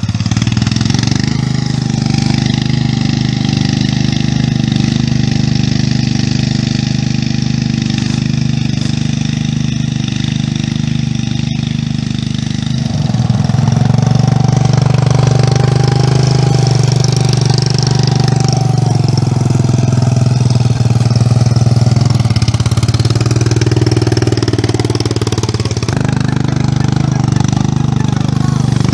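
Single-cylinder engine of a homemade mini tractor built from an MTZ-05 walk-behind tractor, running steadily while pulling a plough. It gets louder about halfway through.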